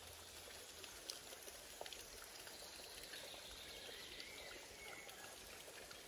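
Small woodland stream trickling over stones: a faint, steady babble with small splashy ticks.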